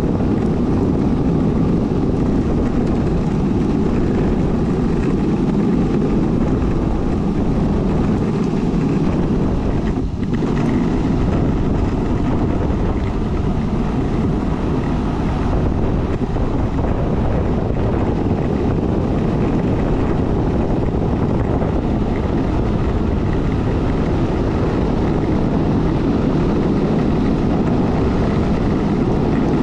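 Longboard wheels rolling fast on asphalt, a steady low roar mixed with wind buffeting the microphone.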